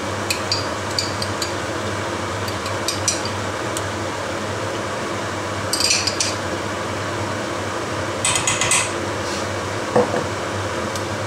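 Metal spoon clinking and scraping in short runs against a jar and a nonstick wok as homemade horseradish is spooned onto frying rabbit pieces, with one sharper knock near the end, over a steady hiss.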